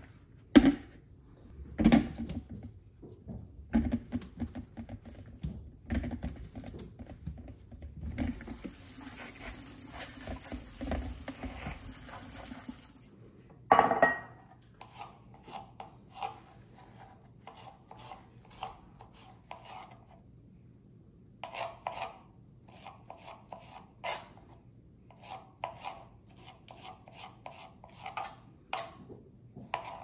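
Kitchen food-prep sounds: bowls and utensils knocking and scraping, with a few seconds of steady hiss and a loud ringing clang about halfway through. After the clang come runs of quick, light taps from a knife on a cutting board as the vegetables for fresh salsa are chopped.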